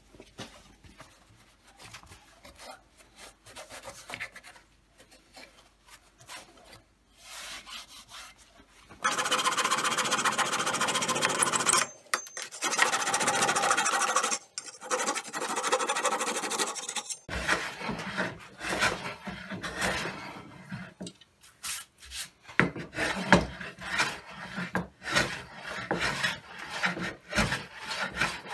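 Wood being scraped and rubbed by hand: light scrapes at first, then long loud passes of a few seconds each, then many short irregular strokes.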